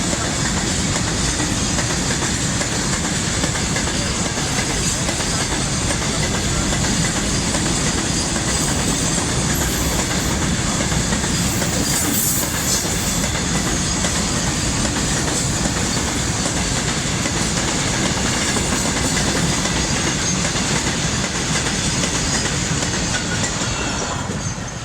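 Indian Railways freight train running past, its wagon wheels clattering steadily over the rails; the sound starts to fall away at the very end.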